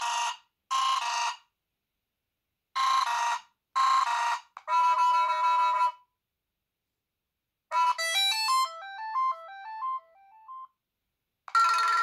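Vkworld T2's stock Android ringtones previewing one after another through the phone's small speaker as each is selected in the ringtone list: short synth phrases that cut off abruptly, then a quick descending run of notes a little past the middle, and another tone starting near the end.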